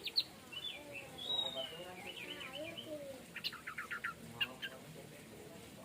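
Orange-headed thrush (anis merah) singing a varied run of high whistled phrases. About three and a half seconds in comes a quick series of sharp notes.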